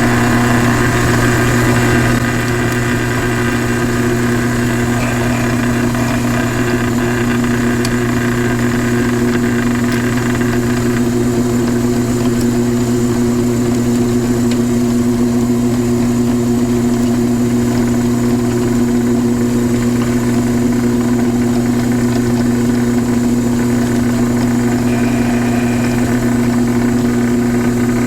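Drill press motor running with a steady hum while drilling holes in a quarter-inch steel angle bracket with a 23/64-inch bit. A higher-pitched cutting noise sits over the hum for roughly the first eleven seconds, then fades.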